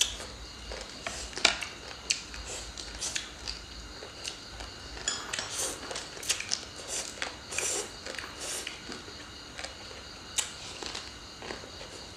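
Eating sounds: irregular crunching and biting with small mouth clicks.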